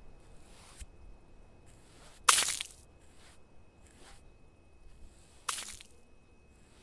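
Paint being smeared by hand across a wall: soft swishes about once a second, with two louder sudden swishes about three seconds apart.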